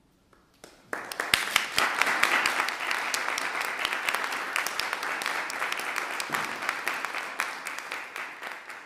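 Audience applause: after a second of near silence, clapping breaks out suddenly about a second in, holds steady, and thins out near the end.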